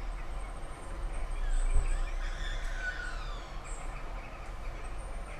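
Outdoor field-recording ambience: birds chirping over a steady low rumble, with a cluster of chirps in the middle.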